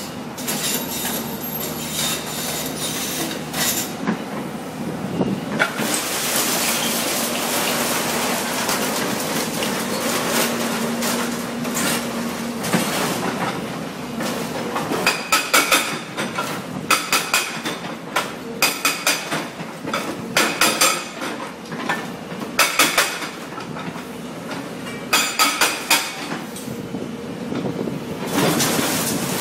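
CMB CM 650 hydraulic breaker hammering concrete rubble: a run of rapid blows near the start, then repeated short bursts of blows through the second half, over the excavator's engine running.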